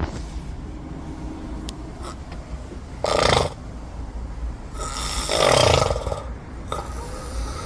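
Person making snoring sounds: a short snore about three seconds in and a longer, louder, rasping one about five seconds in, over a low steady rumble.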